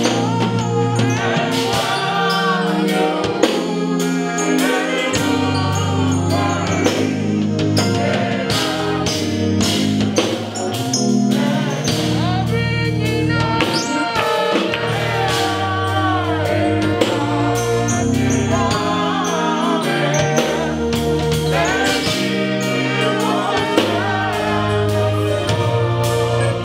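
Live gospel praise song: a worship leader and backing singers singing over a band, with a steady bass line and drum beat.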